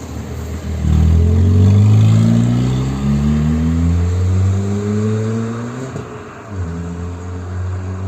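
Peugeot 308 1.6 engine with an aftermarket exhaust diffuser, its sporty exhaust note climbing slowly in pitch as the car accelerates. About six seconds in the pitch falls back and starts climbing again.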